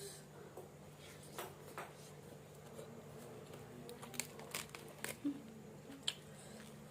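A person chewing food close to the microphone: scattered wet clicks and crunches at irregular intervals, over a steady low hum.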